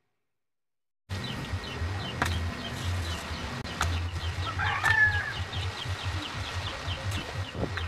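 About a second of silence, then steady background noise with a pulsing low hum and a quick run of short high chirps. A single louder bird call, sliding in pitch, comes about four seconds in.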